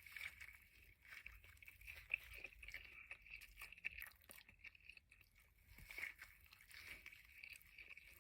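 Faint, close-miked chewing of a breakfast sandwich: irregular soft mouth clicks and smacks throughout.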